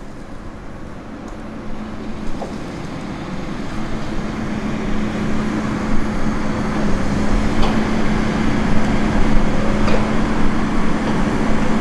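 Diesel engine of a Tigercat 234 knuckleboom log loader running, getting louder a few seconds in as it swings a grapple of logs over the truck. A few light knocks come through it.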